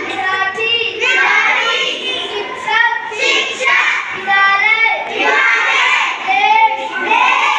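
A group of children's voices chanting a lesson together in a sing-song way, with no pause.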